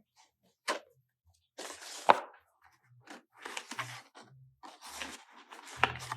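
Paper planner pages and cover being handled: rustling and scraping as a booklet is worked into the cover, with a sharp snap about two seconds in. Faint low bass guitar notes sound from another room in the second half.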